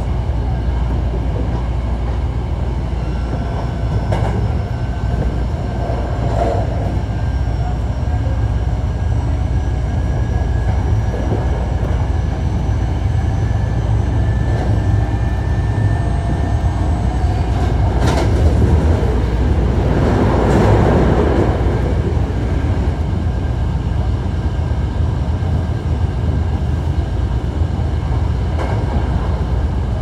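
Hankyu 1300 series electric train with Toyo IGBT VVVF inverter running at speed: a steady low rumble of wheels on rail with faint steady whining tones from the drive. A few sharp clicks, and a louder rushing clatter about twenty seconds in.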